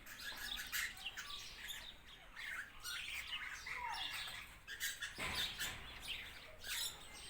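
Mixed parrots and lorikeets chirping and calling in overlapping short, high chirps. A brief low thud comes about five seconds in.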